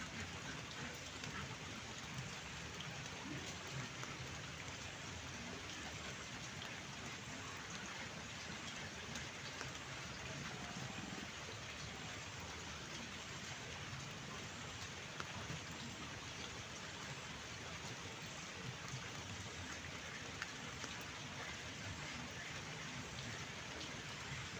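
Steady rain falling: an even hiss with many small drop ticks, unchanging in level.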